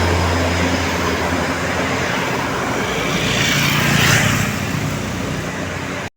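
Bus traffic on a roadside: a heavy engine hums low at first, then a vehicle passes with road noise that swells to a peak about four seconds in and fades away. The sound cuts off suddenly just before the end.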